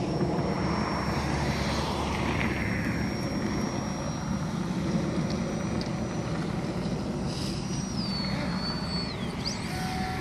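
Electric RC plane (Nanoplanes Baby Shark on a 4S battery) flying, its brushless motor and propeller giving a thin, steady high whine. The whine drops in pitch about eight seconds in and falls again a second later as the throttle comes back.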